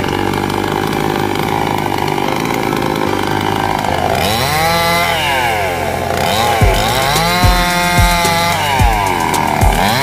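Chainsaw cutting neem branches: from about four seconds in, the engine pitch repeatedly dips as the chain bites into the wood and rises again as it frees. Music with a steady beat plays alongside.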